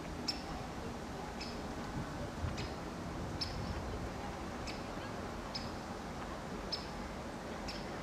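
Woodpecker giving sharp, high single call notes, about one a second at an uneven pace, over a steady low background noise.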